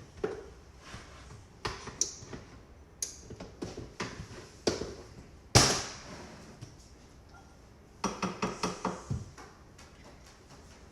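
Kitchen dishes and utensils knocking and clattering on a counter while flour is measured out: scattered knocks, one sharp loud one about halfway, then a quick run of about half a dozen knocks a little later.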